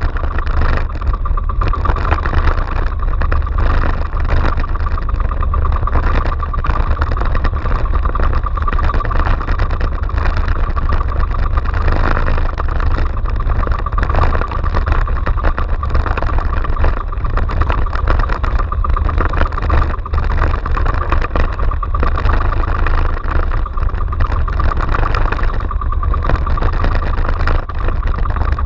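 Outrigger fishing boat's engine running steadily while the boat is underway through choppy sea, with a constant low rumble beneath an even mid-pitched drone.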